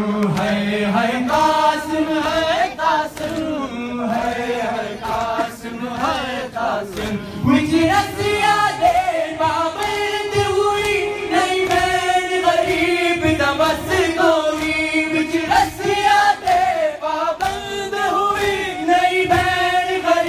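A crowd of men chanting a nauha, a Shia mourning lament, together in long held lines, with regular slaps of hands beating on chests (matam) keeping the rhythm.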